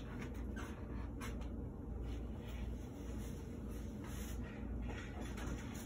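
Low steady hum of room tone with a few faint, soft rustles.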